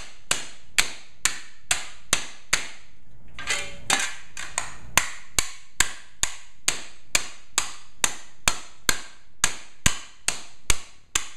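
Hammer beating a crumpled metal license plate flat against a tiled floor: sharp strikes with a short ring, in a steady run of about two a second.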